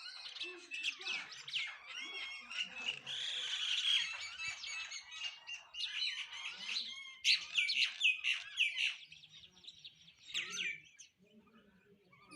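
Several house sparrows chirping: many short, overlapping chirps in a busy chatter that thins out near the end.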